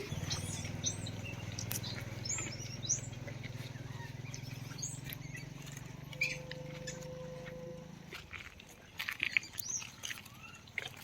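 Small birds chirping now and then over a steady low hum that stops about eight seconds in, with scattered light ticks and rustles near the end.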